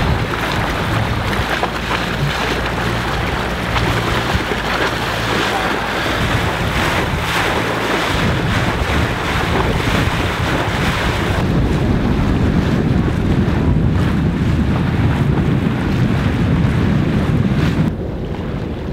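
Wind buffeting the microphone over the rush of water and wake alongside a moving sailing yacht, with a low steady hum underneath for the first several seconds. The sound drops quieter about a second before the end.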